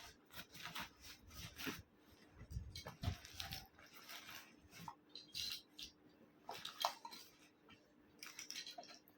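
Rustling and light clicks of things being handled and taken out of a zipped bag pocket, coming irregularly, over a faint steady hum.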